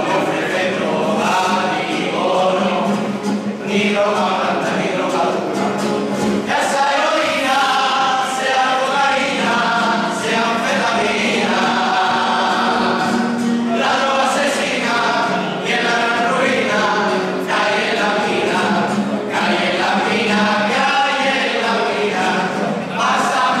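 A carnival comparsa singing a copla in chorus, the voices moving together in phrases of a few seconds with short breaks between them.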